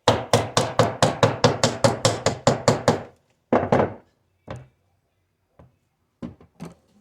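Dead blow hammer striking a seal installer tool, driving a Cummins 5.9/6.7 crankshaft seal down to depth: a rapid run of about a dozen even blows, roughly four a second, for the first three seconds. After that come a few lighter, scattered knocks as the seal seats evenly.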